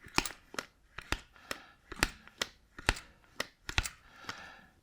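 Hand-lever grease gun being pumped into the front grease nipple of a caravan's overrun brake: a run of sharp mechanical clicks, about two a second, then a softer rasping stretch near the end.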